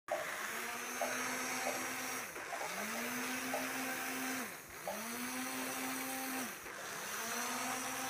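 Small plastic-geared DC motors of a battery-powered robot car whining as they drive it. Each run rises in pitch as the motors spin up, holds for about two seconds, then winds down; the motors stop and restart three times.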